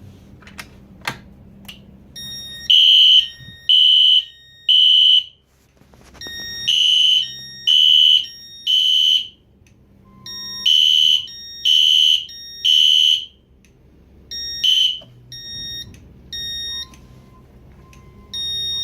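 Fire alarm horns, Edwards EST Genesis devices, sounding the temporal-3 evacuation pattern: three short high-pitched blasts, a pause, then again, repeating. The horns start about three seconds in after a few clicks, and near the end the pattern breaks up into shorter, fainter tones.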